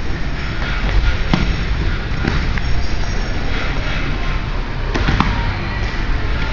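Two grapplers scuffling on foam mats: a few short thumps and slaps of bodies and hands against the mat, over a steady low rumble.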